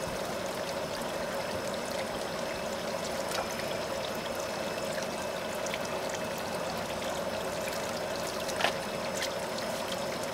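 Water pouring and running steadily into a goldfish pond, with small splashes throughout and one brief sharp sound near the end.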